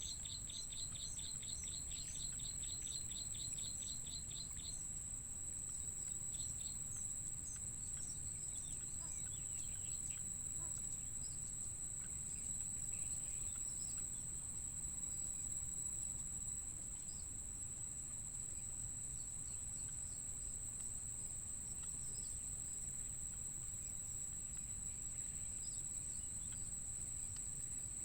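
A steady, high-pitched insect drone runs throughout, with a quick regular run of high bird chirps over the first four to five seconds, then only scattered faint chirps.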